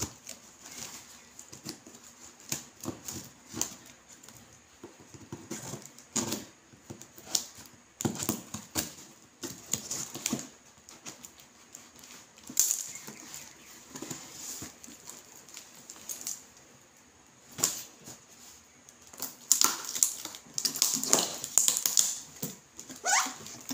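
A cardboard box being unpacked and cut open with a knife: scattered rustles, scrapes and crinkles of cardboard and plastic wrap. The sounds come thicker near the end as the knife slits the packing tape.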